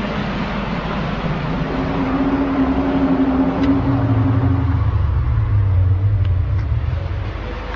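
Unexplained low, drawn-out groaning drone of the kind recorded as 'strange sounds in the sky', over a steady rumble. The held tone drops lower about halfway through and eases off near the end.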